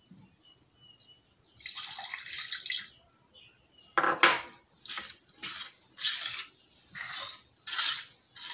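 Water poured from a glass bowl into a stainless steel pot of cornstarch for about a second, then a metal spoon clinks against the pot and scrapes through the thick starch slurry in a run of stirring strokes, roughly one every half second to second.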